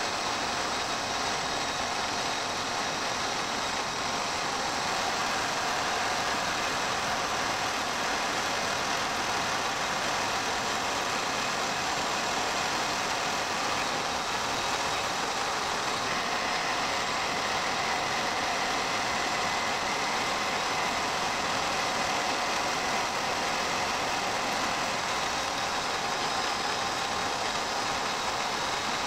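Metal lathe running steadily while a turning tool cuts a cold rolled steel part held in a collet, a continuous machining noise as stringy chips come off. A faint steady whistle joins about halfway through.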